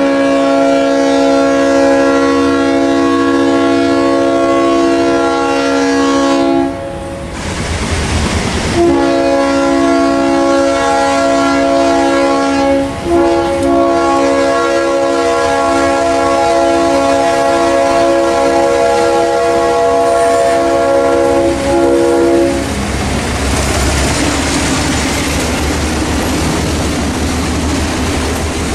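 Diesel locomotive's multi-chime air horn blowing long blasts for a grade crossing, with two short breaks, for most of the first twenty-odd seconds. The lead locomotive then passes close: diesel engine running and wheels clicking over the rail joints.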